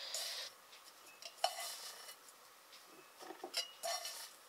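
Dried loose herbs (raspberry leaf, red clover and nettle) rustling as they are tipped and shaken from a stainless steel bowl into a glass jar. A few light clinks of metal on glass come about a second and a half in and again near the end.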